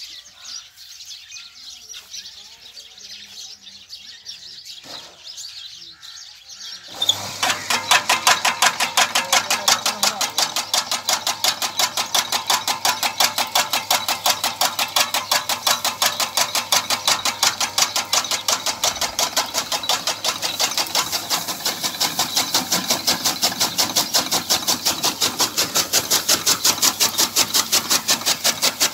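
Motor-driven chaff cutter (toka machine) running, its flywheel blades clacking in a fast, even rhythm of several strokes a second over a low motor hum. It sets in abruptly about seven seconds in, after faint bird chirps.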